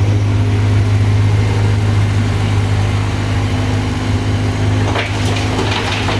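Excavator's diesel engine running steadily with a deep, even hum.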